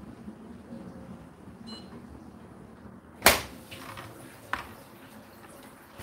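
Whirlpool WFO3P33DLXUK dishwasher door latch releasing with one sharp click about three seconds in, followed by a softer knock as the door is let down.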